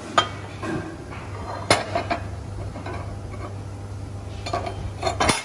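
Several sharp metal knocks and clinks at irregular intervals, the loudest near the end, over a steady low machine hum.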